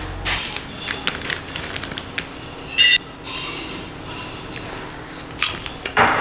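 Crunching of a puffed snack being bitten, in two sharp bursts near the end. Before that come light clicks and a brief ringing clink.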